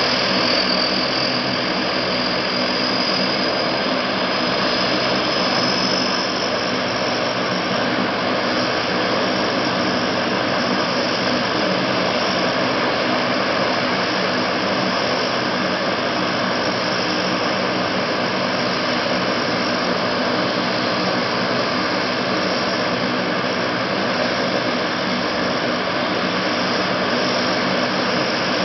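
Lockheed C-130 Hercules's Allison T56 turboprop engines running on the ground: a steady turbine whine and propeller drone. A high-pitched whine near the start falls slightly and fades out within the first several seconds.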